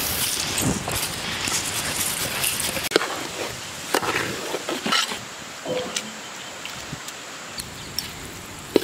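Dry basmati rice pouring into a large metal pot of boiling coconut milk, a rushing hiss for the first few seconds. Then a metal ladle stirring the rice in, knocking sharply against the pot several times.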